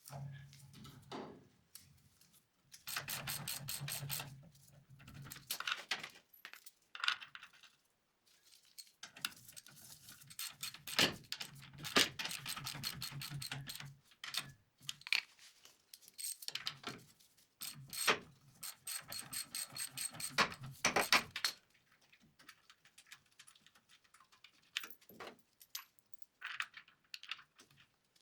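Hand socket ratchet clicking in spells of a few seconds as bolts on a 1956 VW Beetle's torsion-bar spring plate are wound out and the regular-size bolts wound in. Metallic clinks and knocks of bolts and tools come between the spells.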